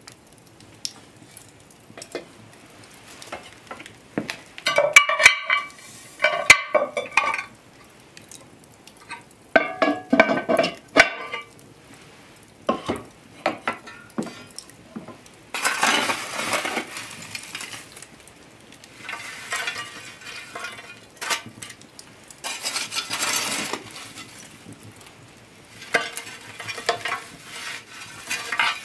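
Cast-iron Dutch oven and its lid clanking with a metallic ring, then a metal fire shovel scraping up hot coals and tipping them onto the iron lid, the coals clinking and rattling, in several separate bursts. These are the coals heaped on the lid to bake the pie.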